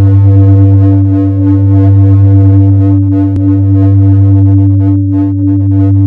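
A loud, steady electronic drone: a low buzzing tone with higher overtones, held at one pitch without a break. A brief click comes about three and a half seconds in.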